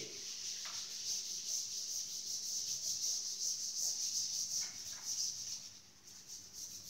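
Cloth wiping chalk off a blackboard: a dry hissing swish in quick repeated strokes that grows fainter near the end.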